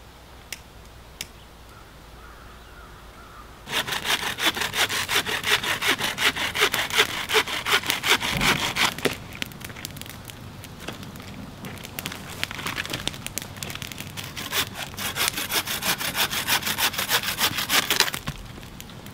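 Bahco Laplander folding saw cutting through wood for kindling, in quick back-and-forth strokes. The sawing starts a few seconds in, eases off in the middle, then picks up again in a fast run that stops shortly before the end.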